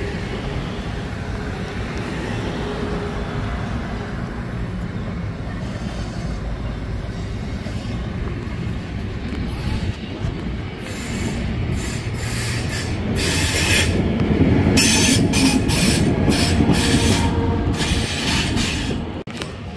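Amtrak Cascades Talgo 8 trainset rolling past at low speed as it pulls out, a steady rumble of wheels on rail. It grows louder about two-thirds of the way through as the Siemens Charger diesel locomotive at the end of the train goes by, with sharp intermittent hissing high up through the second half.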